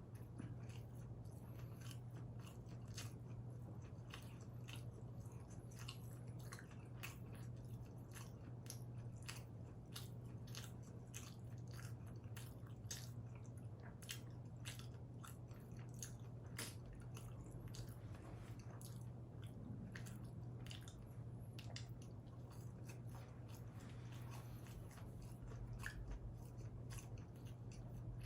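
Close-up chewing and biting of combination pizza, with many small crunches and wet mouth clicks at an uneven pace. A steady low hum sits underneath.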